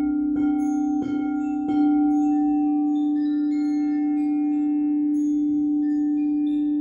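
Crystal singing bowl struck three times, about two thirds of a second apart, then ringing on in one strong, steady low tone. Fainter higher tones and short high tinkling notes sound over it.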